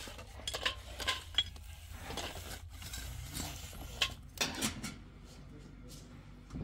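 Scattered clicks, clinks and scrapes of hard objects being handled, with the sharpest cluster about four seconds in. The sound turns quieter after about five seconds, leaving a low hum.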